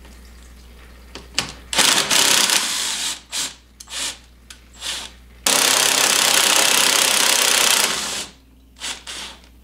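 Cordless drill with a socket extension spinning out a 10 mm bolt: a run of about a second, three short bursts, then a longer steady run of about two and a half seconds, and a couple of brief blips near the end.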